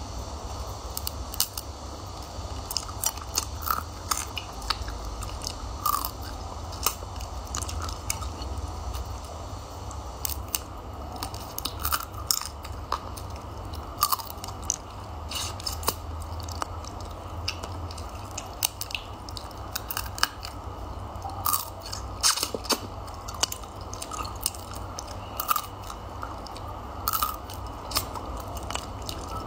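Close-up eating of steamed crab: many sharp, irregular cracks and crunches as the shell and legs are bitten, with chewing and sucking of the meat in between. A steady low hum runs underneath.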